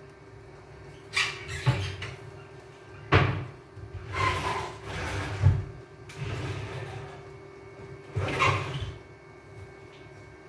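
Kitchen cupboard doors opening and closing and things being shifted about inside, heard as about six separate knocks and rustles spread over several seconds.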